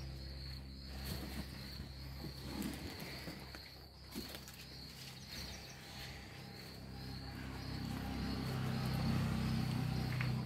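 Crickets chirping steadily in a high, unbroken trill, over a low hum that swells louder near the end.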